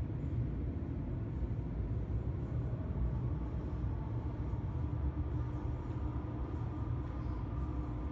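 Underground metro platform ambience: a steady low rumble, with faint steady hums that grow stronger from about three seconds in.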